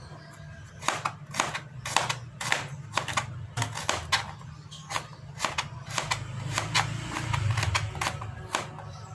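Kitchen knife slicing garlic cloves on a plastic cutting board: irregular sharp taps of the blade hitting the board, about two to three a second, starting about a second in.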